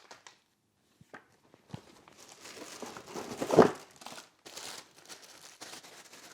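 Plastic packaging crinkling and rustling as a part is unwrapped and handled, with one louder bump about halfway through.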